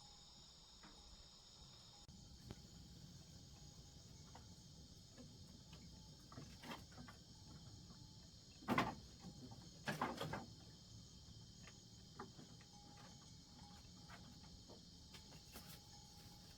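Faint, steady high-pitched chirring of insects, with a few short knocks, the loudest about nine and ten seconds in.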